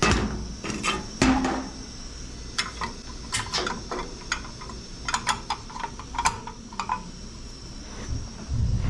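Light metallic clinks and taps, a dozen or so in quick irregular succession, as metal objects are handled, with a duller thump near the start.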